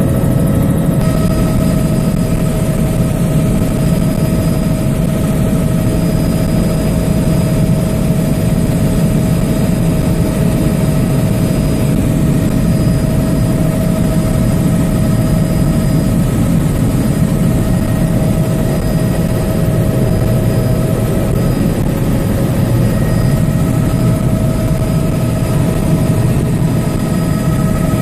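Bell 206B3 JetRanger helicopter in cruise flight, heard from inside the cabin: a loud, steady drone of the main rotor and Allison 250 turboshaft, with a steady whine riding over it.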